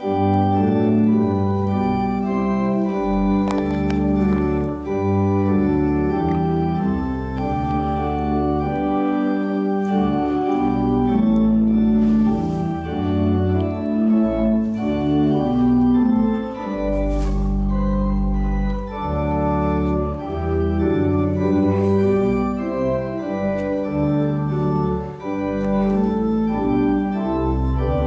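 Church organ playing slow sustained chords over a deep pedal bass line, beginning abruptly.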